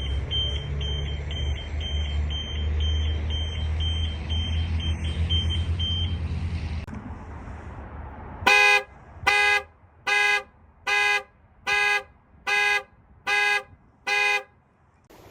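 An Audi's European-spec panic alarm: a siren beeping rapidly at a high pitch, about three beeps a second for some six seconds, over a low rumble. About two seconds after it stops, a Volkswagen's US-spec panic alarm sounds the car horn in eight even honks, a little over one a second.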